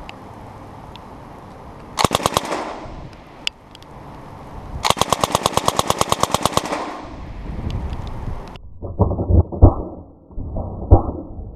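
Suppressed M240 machine gun (7.62×51mm) firing: a short burst of about five shots, then a longer burst of about twenty at roughly ten shots a second. Near the end the sound turns into slow, deep, muffled booms, the gunfire played back slowed down.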